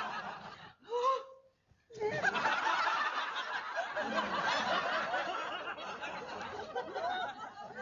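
Studio audience laughing, many voices at once. It breaks off about a second in after a short voice sound, then swells again and slowly fades toward the end.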